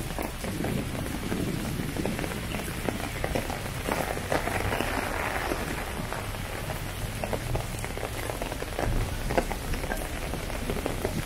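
Steady heavy rain falling on wet paving, with a dense patter of individual drops. It grows a little heavier for a couple of seconds near the middle.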